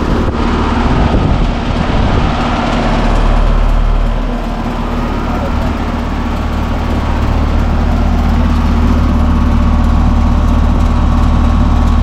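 2022 Heil 5-ton central air conditioner condenser running: a steady compressor hum under the whoosh of the condenser fan. A low rumble swells briefly about three seconds in.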